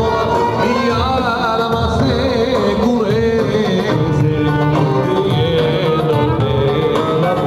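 Middle Eastern-style music playing steadily, a singing voice over instruments.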